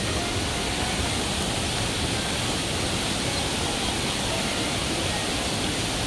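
Steady rush of water from a waterfall and its rocky stream: an even, unbroken hiss.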